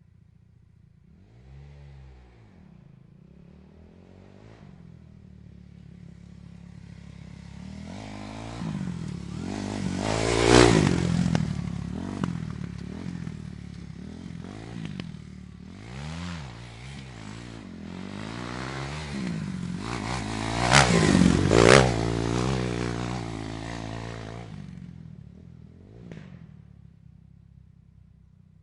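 Dirt bike riding past with its engine revving up and down, growing from faint to loud. It passes closest twice, about ten seconds in and again about twenty-one seconds in, then fades away near the end.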